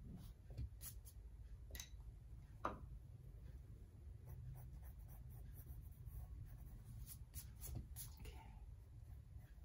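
Colored pencil strokes scratching on paper, faint and irregular, with one sharper stroke about two and a half seconds in.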